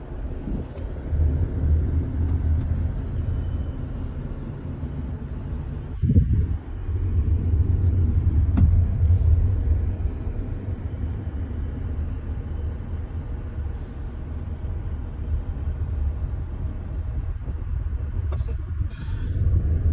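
Steady low road and engine rumble of a car being driven, heard from inside the cabin, with a single sharp thump about six seconds in.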